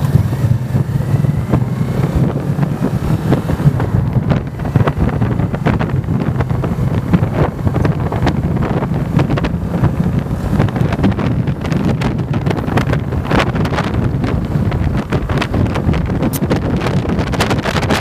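Motorcycle engine running steadily at road speed, with heavy wind buffeting on the microphone that grows rougher in the second half.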